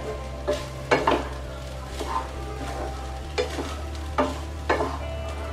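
A spatula stirring and scraping fried rice around a nonstick frying pan: about ten quick, irregular strokes, roughly two a second, over the sizzle of the frying.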